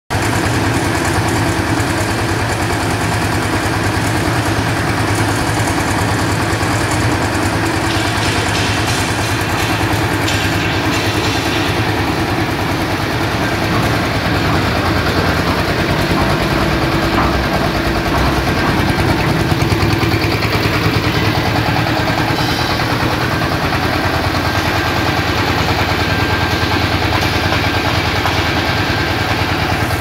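Concrete mixer's small engine running steadily at an even speed, a constant mechanical rumble.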